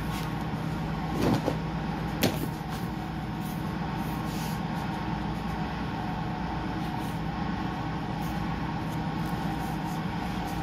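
Steady mechanical hum of room machinery, with two short knocks about one and two seconds in.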